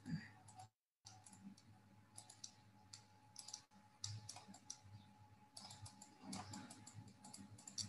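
Faint, irregular clicking in small clusters from a computer input device while words are handwritten on screen.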